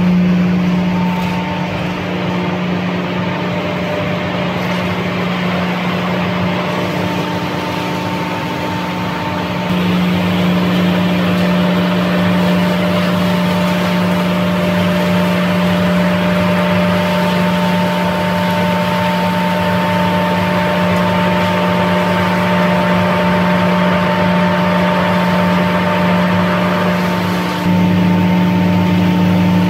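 GXP hammer mill running under load, crushing paddy straw and corn stalks: a loud, steady machine drone with a strong low hum over a dense rushing noise. It gets louder about ten seconds in and again near the end.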